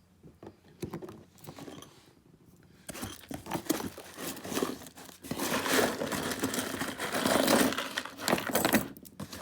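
Packing material in a cardboard shipping box crinkling and rustling as the last jewelry is gathered out of it. A few faint clicks come first, continuous crinkling starts about three seconds in and gets louder about two seconds later.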